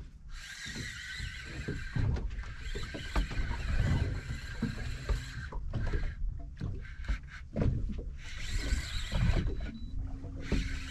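Penn Slammer spinning reel being cranked fast while jigging, its gears whirring in bursts that start and stop sharply: one long run of about five seconds, then shorter ones, over a low rumble of wind and sea.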